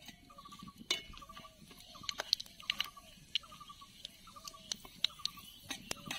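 Whole spices crackling in hot mustard oil in an aluminium karahi, with sharp clicks of a metal spatula stirring them against the pan. Behind it, a short chirping call repeats about twice a second.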